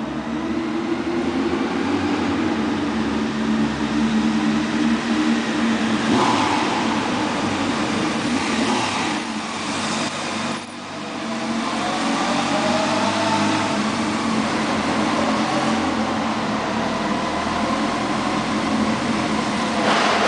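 Honda 919's inline-four engine, running through stock mufflers with the baffles removed, revving up and down as the bike is ridden around a concrete parking garage. The engine note drops off briefly about halfway through, then climbs again, and gets suddenly louder near the end as the bike passes close.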